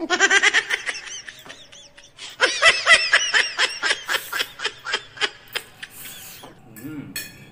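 Laughter sound effect: a high-pitched run of rapid ha-ha bursts that breaks off after about a second, then a longer run starting about two seconds in that fades away.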